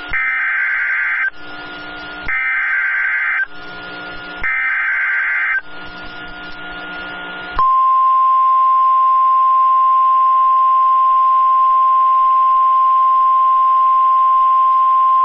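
Emergency Alert System broadcast: three warbling SAME header data bursts of about a second each, with radio hiss between them. About seven and a half seconds in, the steady 1050 Hz NOAA Weather Radio warning alarm tone starts. Together these are the alert tones that open a severe thunderstorm warning.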